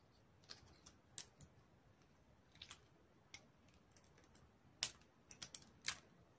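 Hard-boiled egg being peeled by hand: faint, scattered clicks and crackles of the shell cracking and flakes of shell coming away, more of them near the end.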